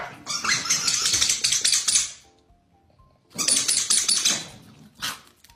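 Corgis' claws skittering and scrabbling on a tile floor as the dogs rush and tussle, in two long bursts of rapid clicking and a short one near the end, over quiet background music.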